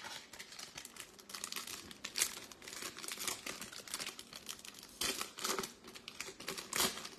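Wrapper of a 2022 Topps Stadium Club Chrome trading-card pack being crinkled and torn open by hand: continuous crackling rustle with louder rips about two seconds in, around five seconds in and near the end.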